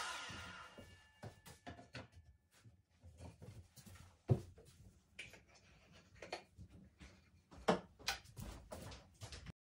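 A sliding mitre saw's motor spinning down and fading out in the first second, then scattered light knocks and clicks of small wooden offcuts being handled and set down, with two louder knocks about four and eight seconds in.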